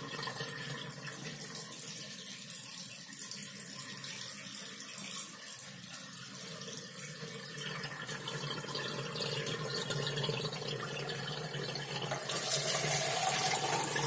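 Water draining out of an Onida Lilliput washing machine's wash tub through its newly freed drain, a steady rush of running water that grows louder about twelve seconds in. It is the sign that the drain now opens in drain mode, once the selector cable is hooked to the last pin.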